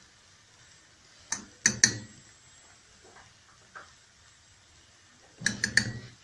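Spoon knocking against the rim of a stainless steel saucepan as flour is tipped into milk for a béchamel: three sharp knocks about a second and a half in, then a quick cluster of taps near the end.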